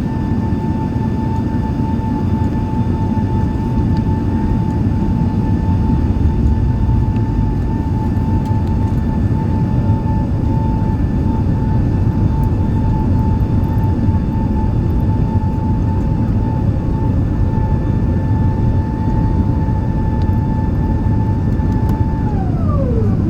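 Airbus A380 jet engines running: a steady loud low rumble under a steady whine. Near the end the whine falls sharply in pitch as the engines spool down.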